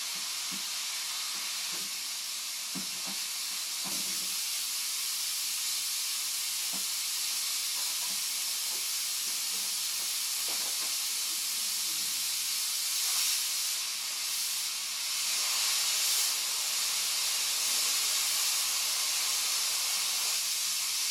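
Handheld steam cleaner jetting pressurised steam at a high-voltage spark plug, a steady high hiss that swells a little about two-thirds of the way through. A few faint knocks come about two to four seconds in.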